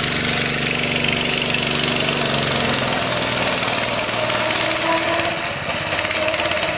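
Small engine of a ride-on vehicle running as it drives off, its pitch dropping about three seconds in and the sound getting quieter after about five seconds.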